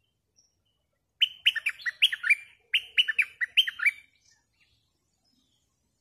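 A bulbul singing two quick phrases of loud, falling whistled notes, one after the other, about a second apart.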